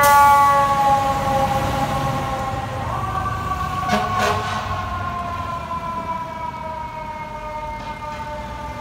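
Fire engine's siren sounding as a steady wail that slowly winds down in pitch, over the truck's engine rumble, with a brief double burst about four seconds in; the whole sound fades as the engine pulls away.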